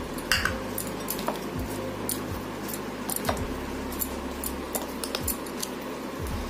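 Plastic spoon stirring cut lemon pieces in a glass bowl: irregular light clicks and taps of spoon and lemon against the glass.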